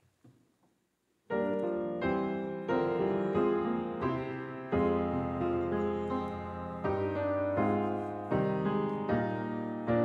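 Piano starts playing about a second in: a slow introduction of sustained chords, a new chord struck roughly every three quarters of a second.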